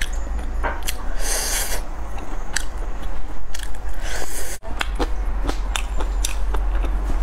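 Biting grilled meat off a bamboo skewer and chewing it, with many short wet mouth clicks and smacks over a steady low hum.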